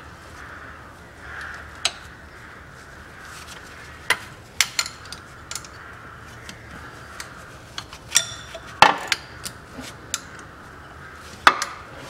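Irregular metallic clicks and clinks of an open-end wrench working the bolts of the Haldex coupling's oil filter cover as they are loosened. The bolts come undone freely, not seized. A steady faint hum runs underneath.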